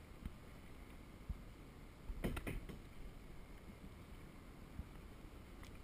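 Light knocks and water slaps on a plastic sit-on-top kayak drifting on choppy sea, over a low steady rumble. A quick cluster of sharper knocks and splashes comes about two seconds in.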